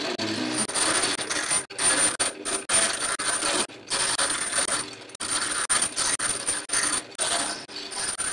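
Two stepper motors turning the knobs of an Etch-A-Sketch as it draws: a steady mechanical whirring with a high whine on top. The sound stops and restarts several times.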